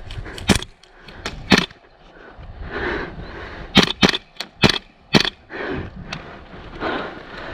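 Airsoft guns firing single shots: about seven sharp cracks at uneven spacing, a pair close together near the start and a quicker run of four in the middle, with rustling in between.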